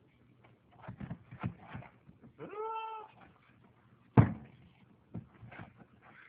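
A mouse trapped in a trash can: scratching and rustling, then about two and a half seconds in a single drawn-out cry that rises and falls in pitch, then a sharp, loud knock just after four seconds, followed by a few faint clicks.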